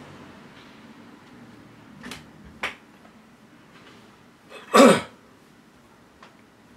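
A person coughs once, briefly, about five seconds in, after a couple of faint clicks.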